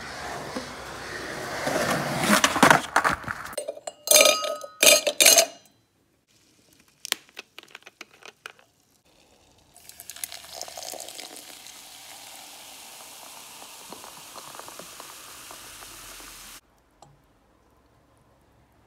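A skateboard rolling and clacking on concrete for the first few seconds. Then ice cubes clank into a stainless steel cup with a ringing clang, and a few clicks follow. From about ten seconds in, water pours from a plastic bottle into the metal cup in a steady stream, which cuts off suddenly a couple of seconds before the end.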